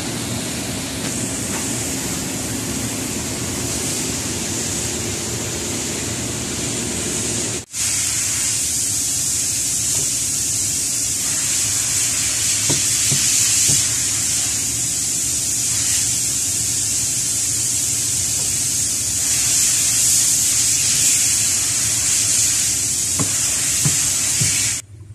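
Steady loud hiss over a low hum, workshop background noise. It breaks off for an instant about eight seconds in and comes back a little louder, with a few faint clicks.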